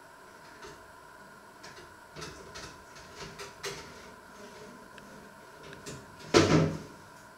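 Rummaging in a low kitchen cupboard: scattered light knocks and clinks of things being moved, then a louder clatter a little after six seconds in.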